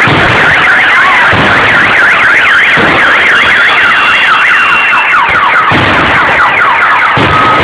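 Fireworks bursting with dull booms every second or two, while several car alarms wail over them at once, their pitches sweeping rapidly up and down: alarms set off by the blasts.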